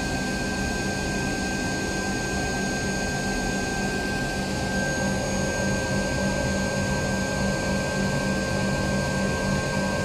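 Steady drone heard in the cockpit of an Embraer E-Jet on the ground, with its APU running and the electric hydraulic pumps on. Several constant whining tones sit over the hum, and one more tone joins about halfway through.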